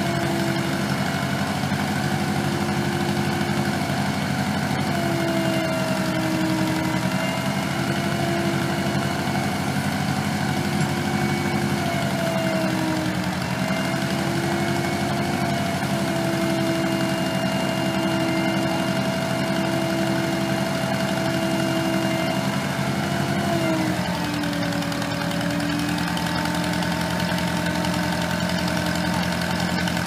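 Case 530CK tractor-backhoe engine running steadily while the backhoe digs, its pitch sagging briefly a few times, most deeply about 24 seconds in.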